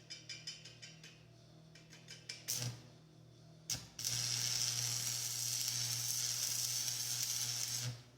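Electric arc welder at work on a steel gate: a run of short, sputtering crackles, then from about four seconds in a steady, loud sizzling hiss over a low hum, which cuts off just before the end.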